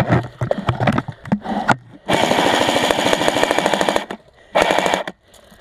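Airsoft gun firing on full auto: a long burst of about two seconds, then a short burst near the end, after a few scattered clicks.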